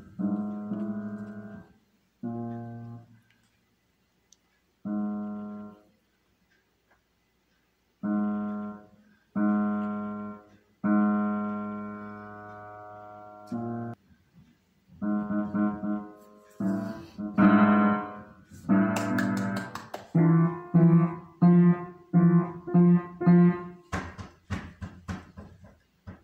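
A toddler striking clusters of keys on an upright piano, each group of notes ringing and dying away, with pauses of a second or two between them. In the last third the strikes come faster, about two a second.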